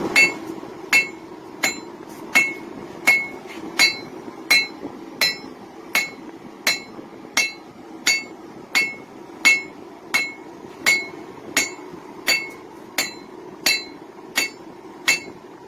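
A hand hammer forging a hot railroad spike on an anvil, striking in a steady rhythm of about three blows every two seconds, each with a short metallic ring. A steady low rumble runs beneath the blows.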